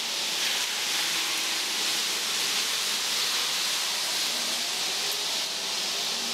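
Steady rushing hiss of flowing creek water.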